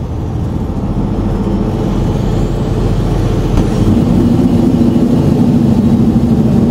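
Semi truck driving at highway speed, heard from inside the cab: a steady low rumble of engine and road noise that grows slightly louder about halfway through.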